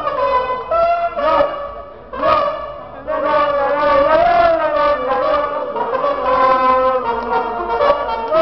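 A trumpet playing a tune: a run of short notes, a brief dip about two seconds in, then longer held notes with a wavering pitch.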